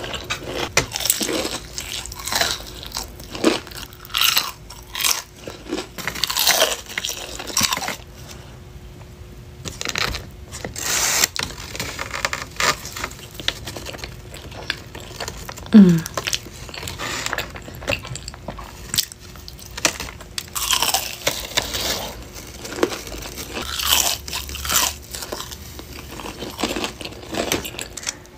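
Close-miked crunching and chewing of crispy breaded fried chicken tenders, with irregular crisp bites and chews. About halfway through comes a short rising 'mm' hum.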